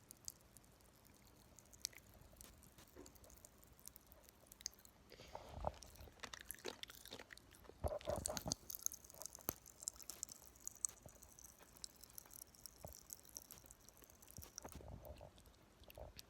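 Aftershocks popping candy crackling in a mouth: faint scattered tiny pops and crackles that grow thicker after about five seconds and thin out near the end.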